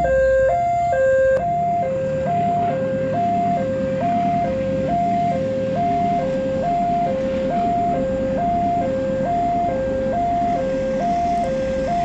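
Railway level-crossing warning siren sounding its electronic two-tone alarm: a high note and a lower note alternate steadily, one high-low pair a little under every second. About a second and a half in, an extra layer of higher tones drops out, leaving the single two-tone signal over a low rumble.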